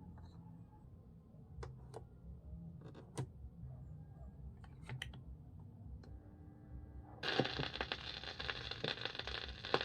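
Victor SPE-8200 IC portable turntable between records: a low hum with a few scattered sharp clicks, then about seven seconds in a crackly hiss starts abruptly, like a stylus set down on a record's surface.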